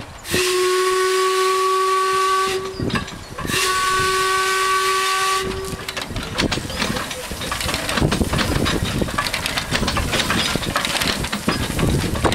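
Replica Steam Elephant steam locomotive sounding two long steady whistle blasts, then hissing steam and a rapid, uneven clatter of exhaust beats as it moves off.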